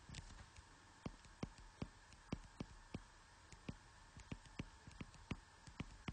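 Faint, irregular taps of a stylus on a tablet's touchscreen, about two to three a second, as a word is written out by hand.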